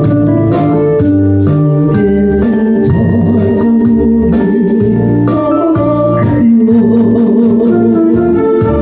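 Electronic organ music: held chords over a bass line that changes note every half second or so, with light regular taps marking the beat.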